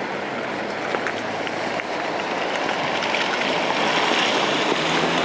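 Steady city street noise, a hiss of traffic on a wet, slushy road, swelling a little in the second half.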